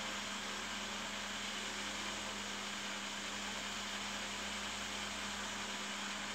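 Steady background noise: an even hiss with a low, constant hum underneath, unchanging throughout.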